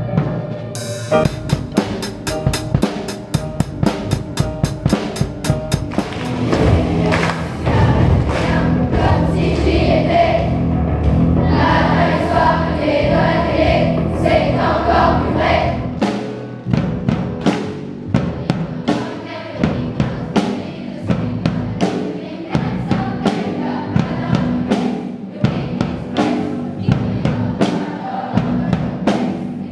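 Children's choir singing with a band of drum kit, electric bass and keyboard; the drums keep a steady beat throughout, and the voices come through fullest in the middle.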